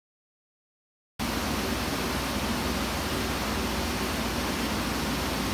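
Silence, then a steady rushing noise starts abruptly about a second in and holds even, with a faint low hum under it.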